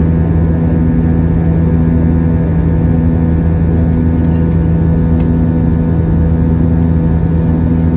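Steady loud drone of an Airbus A320-family airliner's jet engines heard inside the cabin during the climb after takeoff, with a low hum that pulses on and off about once a second. A few faint ticks come in the second half.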